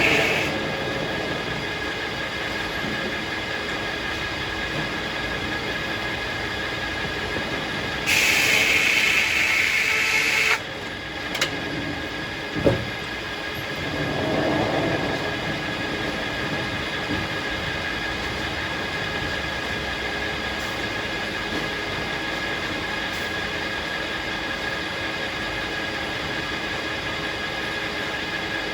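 Circular sawmill machinery running steadily with a constant hum. About eight seconds in, a louder hiss lasts a couple of seconds, and it is followed by two sharp knocks.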